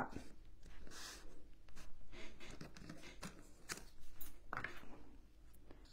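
Faint handling noises of wooden craft sticks being fitted and pressed onto a cutting board: scattered small taps, clicks and rubs.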